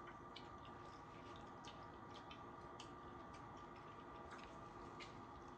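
Near silence: room tone with a faint steady hum and scattered faint, irregular small clicks.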